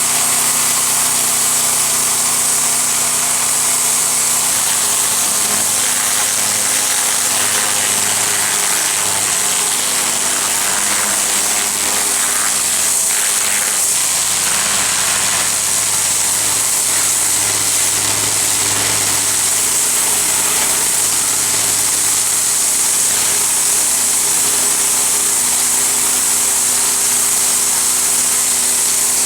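Petrol-engined pressure washer running steadily, its engine hum under the continuous hiss of the water jet.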